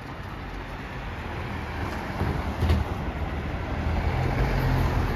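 A road vehicle passing close by, its noise growing steadily louder.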